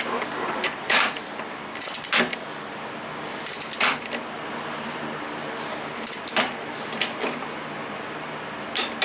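Click-type torque wrench ratcheting as it tightens the cylinder head bolts of a Toro lawnmower engine to 14 foot-pounds: clusters of sharp metallic clicks every second or two.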